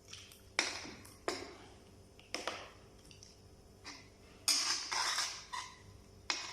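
A cooking utensil knocking and scraping against cookware: several separate sharp clinks, with a longer scrape about two-thirds of the way through.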